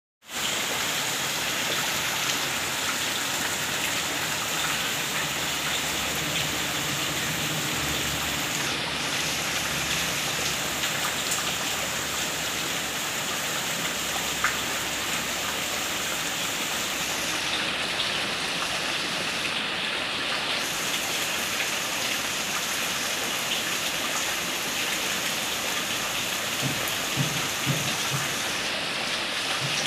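Heavy rain falling steadily on a waterlogged yard and its puddles.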